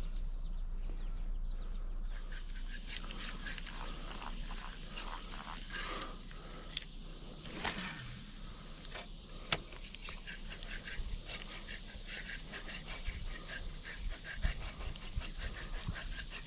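A steady, high-pitched chorus of insects, with frequent light clicks and knocks from a baitcasting rod and reel being handled close by, more of them in the second half.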